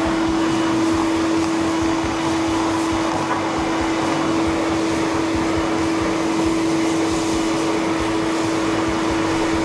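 Electric hand dryer blowing at full speed: a loud, steady rush of air over an even motor hum.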